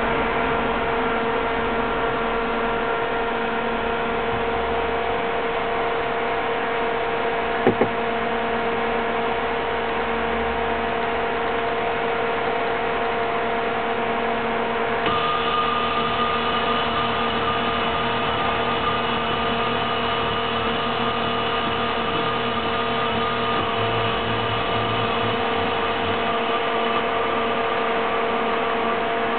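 A Yaskawa AC servo motor spinning under its servo drive gives a steady whine of several tones. About halfway through, a higher whine joins in and keeps going. A single brief click comes about eight seconds in.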